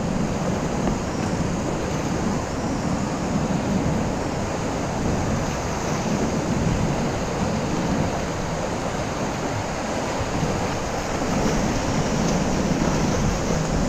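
Steady rush of whitewater from river rapids around the kayak, with waterfalls behind, and some wind on the microphone.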